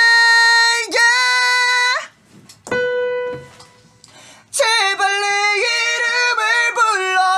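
A young man singing unaccompanied, holding long high notes in two phrases with a pause between them. In the pause a single piano note sounds and fades. The second phrase carries vibrato.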